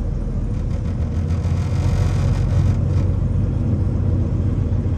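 Semi truck's diesel engine running as heard inside the cab while the truck pulls away and rolls slowly across the lot, a steady low rumble that grows a little louder about a second in.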